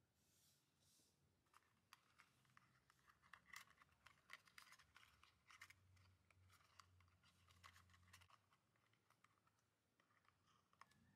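Faint small clicks, taps and scratches of fingers and fingernails handling a miniature cardboard toy box.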